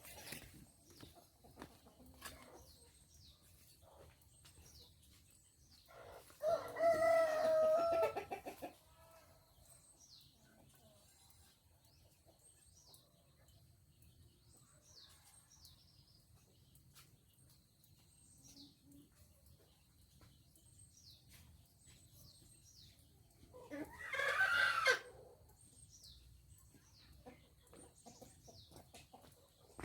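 A rooster crows twice, about seventeen seconds apart, each crow a loud pitched call lasting about two seconds, over faint, repeated high chirps from small birds.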